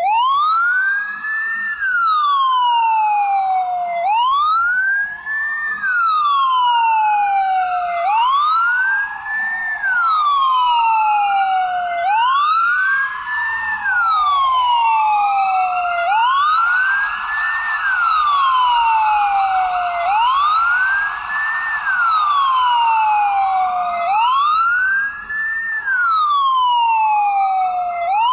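Ambulance siren on its wail setting: a tone that rises over about a second and a half, then falls back more slowly, repeating about every four seconds, seven times over. A fainter second wail trails behind it.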